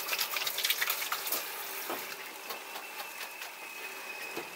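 Chicken pieces in sauce sizzling and simmering in a saucepan on a gas side burner, with irregular crackles and pops, busiest in the first second or so.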